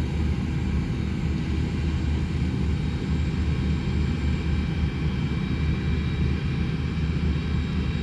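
Combine harvester working in the field, heard as a steady low engine drone with a faint steady whine above it.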